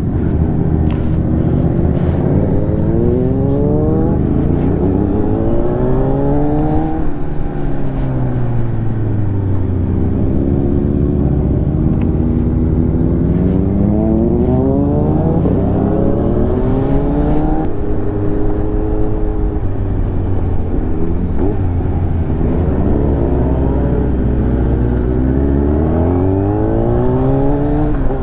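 Motorcycle engine heard from on board while riding, accelerating again and again: its pitch climbs, then drops back at gear changes or when the throttle is rolled off, several times over.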